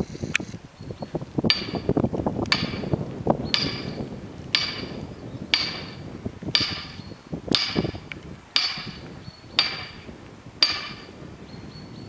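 Hammer blows driving a felling wedge into the cut of a large tree, about one strike a second, eleven in all, each with a short metallic ring.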